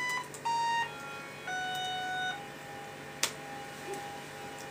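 SuperCollider's default synth playing from an Android phone's small speaker: a steady electronic tone that jumps to a new, mostly lower, note several times in quick succession as it is controlled remotely, then holds one quieter note. A single sharp click about three seconds in.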